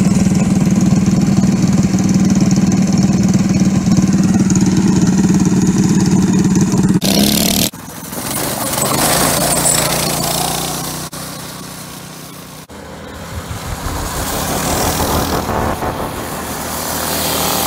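Mini bike engines running loud and steady at the start line. After a sudden break, small engines rise and fade twice as mini bikes and a go-kart drive past.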